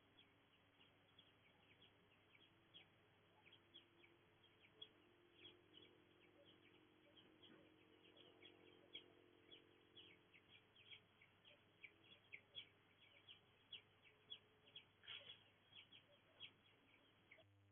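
Faint birdsong: many short, quick chirps from small birds, coming more densely in the second half, over a steady low hum.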